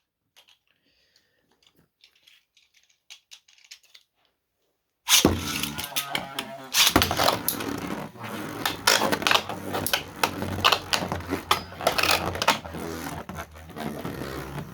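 A few faint clicks, then about five seconds in, 3D-printed Beyblade spinning tops are launched into a plastic stadium and spin against each other with a dense rattle of clashing hits and scraping.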